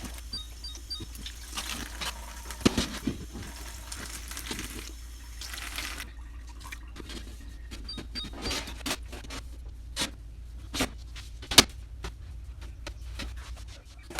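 Kitchen tap running into the sink as a glass fridge shelf is washed. The water stops about six seconds in, and a series of sharp knocks and clinks follows.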